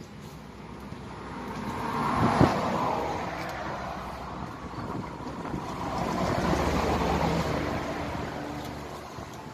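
Motor vehicles passing one after another: the sound swells to a peak about two and a half seconds in, with a short knock at its height, fades, then swells again around six to seven seconds in before fading.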